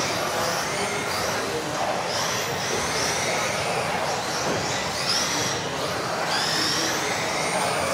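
Several electric RC off-road cars racing together: overlapping high-pitched motor whines that rise and fall as the cars accelerate and brake, over a steady rush of tyre noise.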